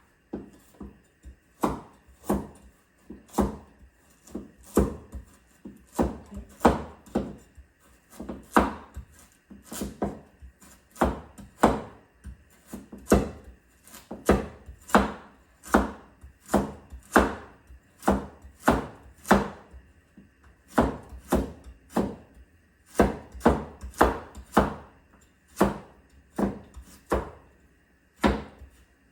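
Kitchen knife slicing a carrot on a cutting board: a steady run of chops, roughly two a second, with a few short pauses.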